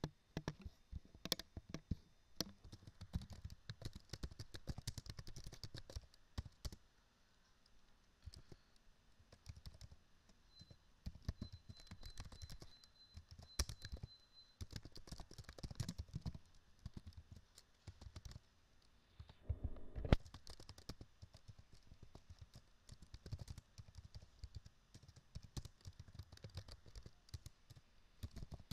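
Typing on a computer keyboard: quick runs of key clicks broken by short pauses, with one louder knock about twenty seconds in.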